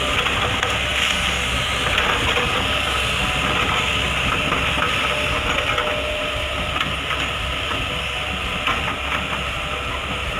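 Excavator's diesel engine running steadily, with frequent metallic clicks and clanks.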